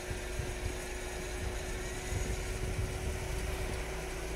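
Pickup truck engine running at low revs as the truck edges forward through deep, rutted snow. The rumble swells and eases, with a steady hum over it.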